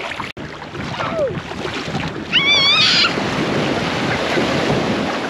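Small waves washing and splashing in shallow surf, with wind on the microphone. About two and a half seconds in, a child lets out a high-pitched wavering squeal lasting under a second.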